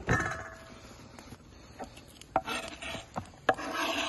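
Kitchen knife scraping diced bell pepper across a wooden cutting board into a bowl. A knock with a short ring comes at the start, then a few light taps, then two longer scrapes near the end.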